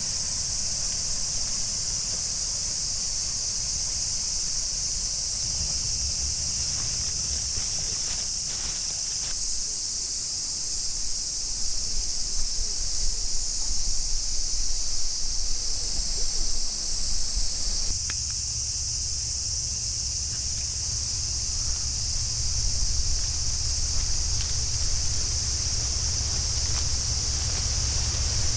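Cicada chorus: a steady, high-pitched, unbroken hiss, with a low, fluctuating rumble on the microphone underneath that gets louder about halfway through.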